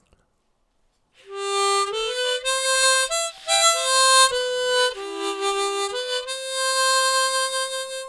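A harmonica playing a short phrase of a melody: a run of separate notes starting about a second in, then one long held note near the end that fades away. The held note is the spot marked for vibrato.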